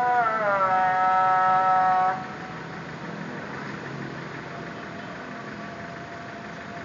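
Muezzin chanting the evening call to prayer over a mosque loudspeaker: a long, wavering held phrase that breaks off about two seconds in. A pause between phrases follows, filled with the low hum of idling car traffic.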